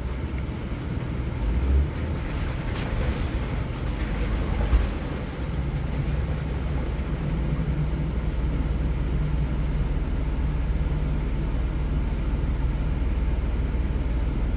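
A 4x4's engine running at low speed while driving through deep water, heard from inside the vehicle. Water sloshes around it, with a few sharper splashes or knocks in the first five seconds, and a steadier engine hum from about six seconds in.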